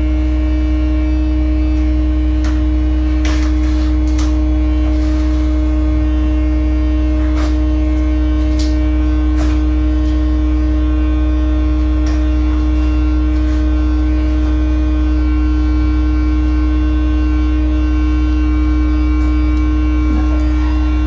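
Sewer pump-out truck's vacuum pump running: a loud, steady buzzing drone with a deep low hum and a steady higher tone over it. A few faint clicks in the first half.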